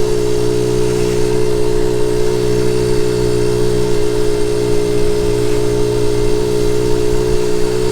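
Honda Z50 J1 monkey bike's 49cc four-stroke single-cylinder engine running at a steady, unchanging pitch while the bike cruises along.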